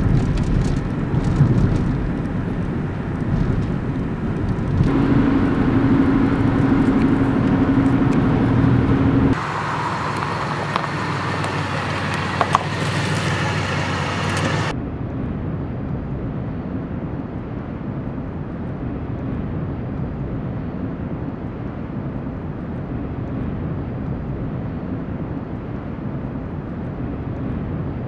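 Car engine and road noise heard from inside a moving car, changing abruptly a few times. After about fifteen seconds it gives way to a quieter, steady rumble outdoors.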